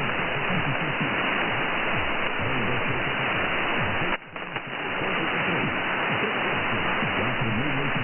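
Weak shortwave AM broadcast of Radio Verdes Florestas on 4865 kHz, heard through heavy static hiss with faint programme audio underneath. The signal drops briefly about four seconds in.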